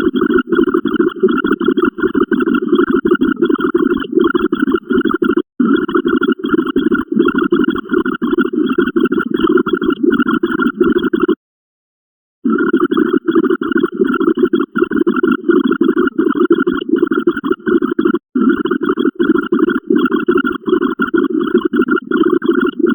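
A dense, rapid stream of short sound-effect clips firing in quick succession as the binary count ticks up. It stops for about a second just after eleven seconds in, then resumes.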